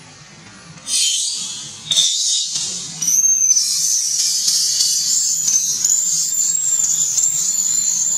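Infant macaque screaming in distress: a loud, high-pitched cry that starts about a second in, breaks off briefly a couple of times, then is held almost without pause. Faint background music underneath.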